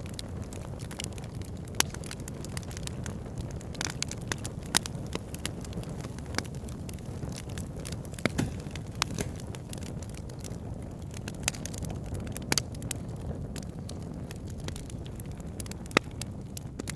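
Wood campfire burning: a steady low rumble of flames under frequent sharp crackles and pops, with a handful of louder snaps a few seconds apart.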